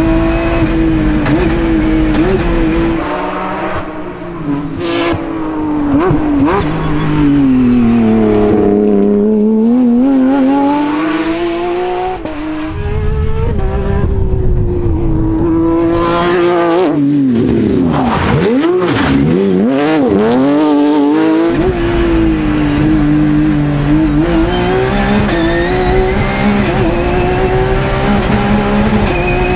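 Porsche 997 rally car's flat-six engine driven hard, its note climbing under full throttle and dropping sharply at gear changes and lifts, over and over.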